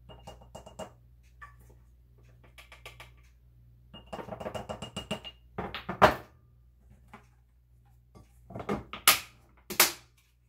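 Tablespoon scraping and clinking against glass as cornstarch is measured out of a glass container into a small glass spice jar: small clicks, a run of quick ticks about four seconds in, and a few louder sharp knocks about six seconds in and again near the end.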